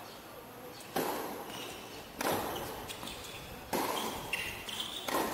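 Tennis ball struck by rackets four times in a doubles rally, a serve and then returns and volleys about every second and a half, each hit sharp with a short ring. Short high squeaks come between the last hits.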